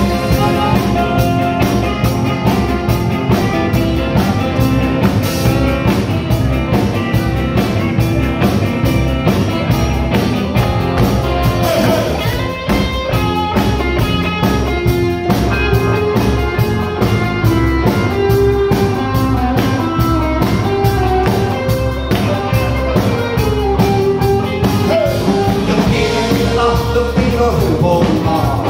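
Live band playing with a steady drum beat and electric guitar, with men singing.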